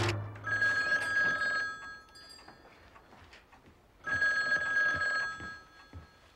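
Rotary desk telephone ringing: two rings of about a second and a half each, about four seconds apart.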